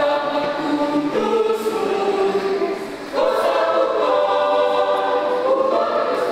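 Mixed adult choir of men and women singing held chords in parts. The sound dips briefly just before three seconds in, then the choir comes back in louder.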